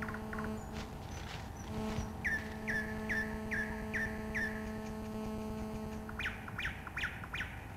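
A bird calling in a run of short, falling notes, about two or three a second. Near the end it calls again in a quicker, higher run. A steady low hum runs underneath.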